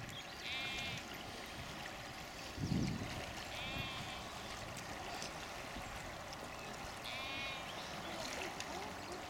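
Distant sheep bleating three times, each call about half a second long, over a steady background hiss. There is a low thump about three seconds in.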